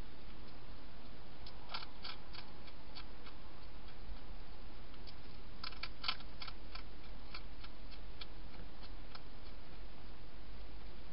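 Wild European hedgehog chewing and crunching food: irregular small sharp clicks, bunched in two flurries about two and six seconds in, over a steady low hum and hiss.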